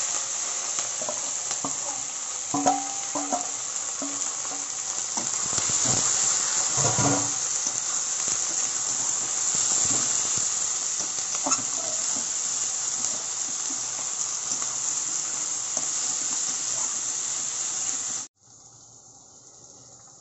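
Chopped onions, capsicum, tomatoes and green chillies sizzling loudly in hot oil as they fry, with a utensil stirring and knocking against the pan a few times. The sizzle cuts off abruptly near the end, leaving a faint background hiss.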